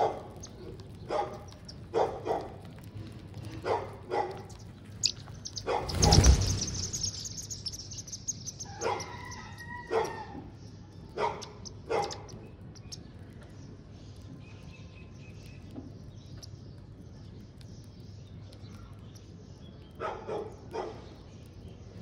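A dog barking in short bouts of sharp single barks, with a loud short noise about six seconds in and a quieter pause of several seconds before two more barks near the end.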